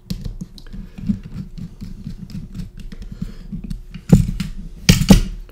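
Small screwdriver driving little machine screws into the PCB holder's metal base: a run of fine, quick clicks and scrapes, then a couple of louder knocks about four and five seconds in.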